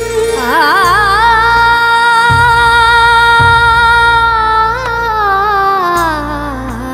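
A woman singing a thumri in Raga Mand. An ornamented phrase settles on a long held note, then slides slowly downward near the end, over a low rhythmic accompaniment.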